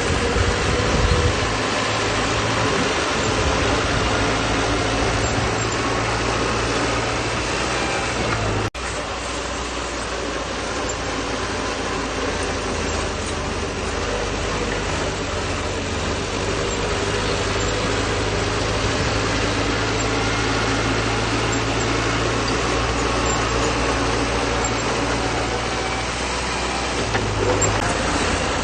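Bulldozer's diesel engine running steadily under load, with a brief break in the sound about nine seconds in.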